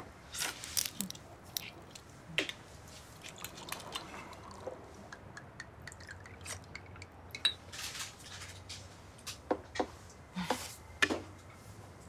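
Eating ramyeon with a spoon: irregular wet slurps of broth and noodles, mixed with light clicks and clinks of the spoon and glasses.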